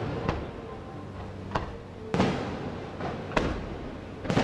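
Aerial firework shells bursting in a display: about five sharp bangs, the loudest two about two seconds in and near the end, each trailing off in a rolling echo.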